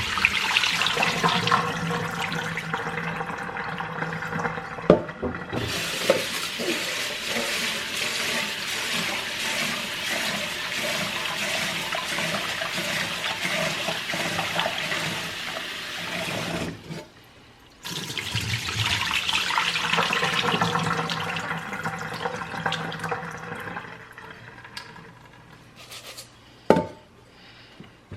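Water running steadily from a tap or into a vessel, over a faint low hum. It breaks off briefly once partway through and then resumes, with a couple of sharp clicks.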